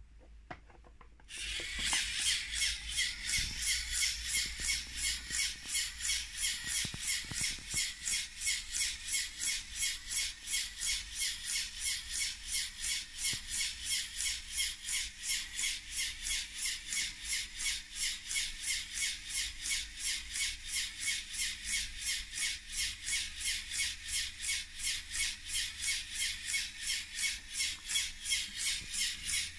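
LEGO Technic pneumatic system running: the motor-driven compressor and the car's pneumatic engine push and vent air in a steady, rhythmic hiss, about four pulses a second, starting about a second in when the compressor is switched on.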